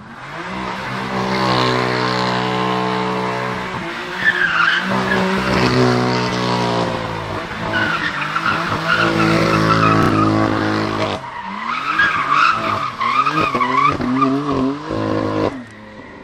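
BMW M4's twin-turbo straight-six held at high revs while the rear tyres squeal and spin through donuts. In the last few seconds the engine is revved up and down in quick blips, then the sound drops away suddenly near the end.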